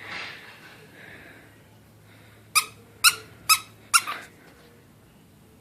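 A dog's squeaky chew toy squeezed four times in quick succession, about half a second apart, each a short, high squeak.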